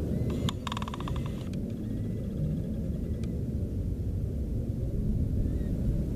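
Wind buffeting the microphone as a steady low rumble. About half a second in comes a second-long run of rapid ticks, and a faint thin whine comes and goes over the next couple of seconds.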